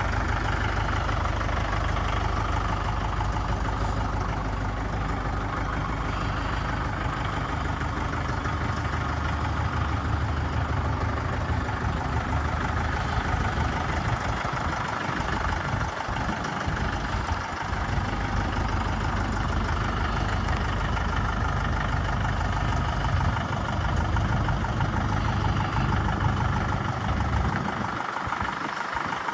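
The diesel engine of a 2015 Mahindra 4540 farm tractor running steadily at a low, even speed.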